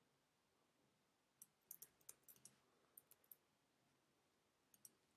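Faint clicks of a computer keyboard and mouse, about ten in quick succession a little over a second in, then two more near the end.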